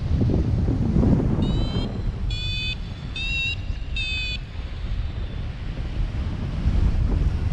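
Wind rushing over the microphone of a paraglider in flight. Over it a flight variometer gives four short, high beeps about a second apart. This is its climb tone, the sign that the glider is rising in lift.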